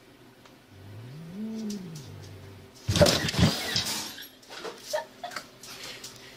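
A cat gives a low, drawn-out moaning meow that rises and then falls in pitch. About three seconds in comes a sudden loud, noisy commotion lasting around a second, followed by a few light knocks.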